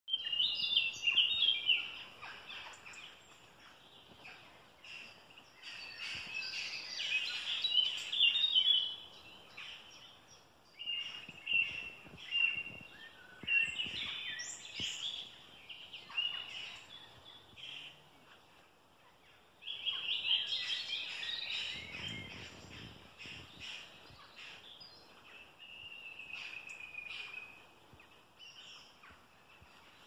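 Several woodland songbirds singing, phrases of high, fast notes lasting a few seconds with short pauses between.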